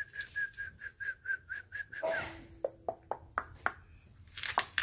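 A quick run of short, high whistled notes at one pitch, about five a second, that stops about two seconds in, followed by a few sharp clicks.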